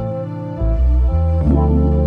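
Background music: held notes over a bass line that changes every half second or so.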